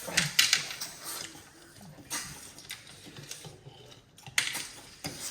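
People noisily sucking boiled freshwater snails (ghongi) out of their shells: a string of short, sharp slurps, about six spread irregularly over a few seconds.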